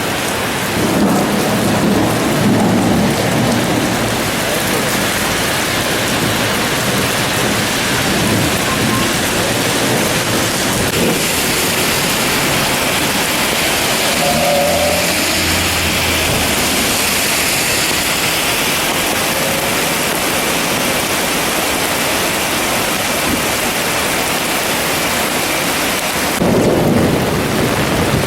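Heavy downpour: rain pouring steadily, with low rolls of thunder rumbling in the first few seconds and again near the end.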